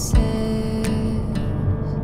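Background music with long held notes, over the low rumble of a car cabin on the road.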